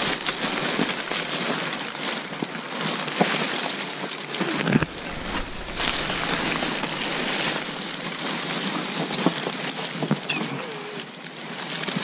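Clear plastic bags and film crinkling and rustling, with scraps of paper, as a gloved hand rummages through them, giving a dense run of small crackles.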